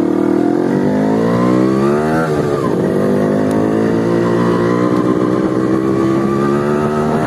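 Motorcycle with its exhaust baffle (dB killer) removed, running loud as it accelerates hard. Engine pitch climbs for about two seconds, drops at a gear change, then rises again more slowly in the next gear.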